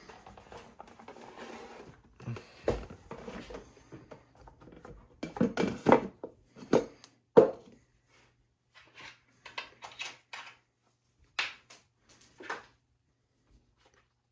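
Irregular clicks, knocks and clatter of a chainsaw's bar cover, nuts and hand tools being handled as the cover is fitted back on, with the loudest knocks bunched in the middle.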